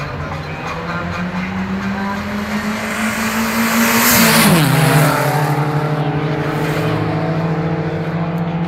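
A street-racing car at high revs approaching and speeding past. Its engine tone climbs slightly as it nears, then drops sharply in pitch about four and a half seconds in as it passes with a loud rush. It runs on steadily at the lower pitch as it moves away.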